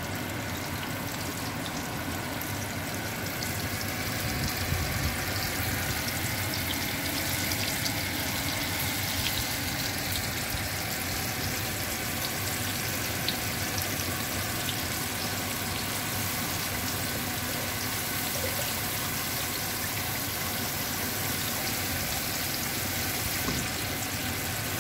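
Floured fish fillets frying in a pan of hot oil: a steady sizzle with a few faint pops.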